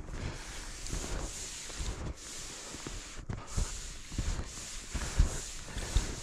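Footsteps of a person walking through snow, irregular steps.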